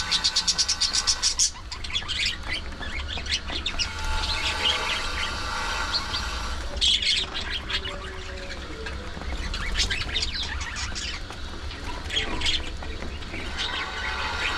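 Budgerigars chirping and chattering, several birds at once. It opens with a fast, even run of ticking notes lasting about a second and a half.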